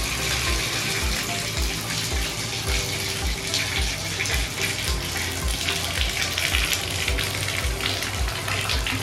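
Water running from a newly installed slip-on bathtub diverter spout into the tub in a steady rush, the faucet turned on to test the new spout for leaks.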